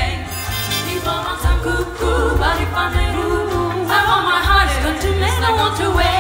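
Live big band music taken straight from the mixing desk: bass notes changing about once a second under melodic lines that slide up and down, with singing.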